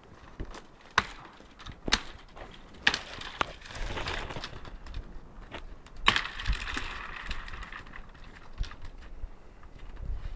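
Hatchet chopping: several sharp cracking blows about a second apart, with longer stretches of crunching and scraping between them and a strong blow about six seconds in.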